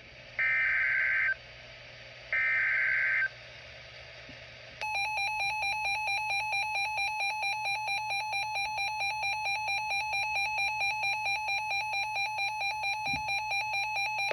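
Emergency Alert System header on weather radio: two one-second bursts of digital SAME data tones, then about five seconds in the steady two-tone EAS attention signal starts and holds, announcing a new warning.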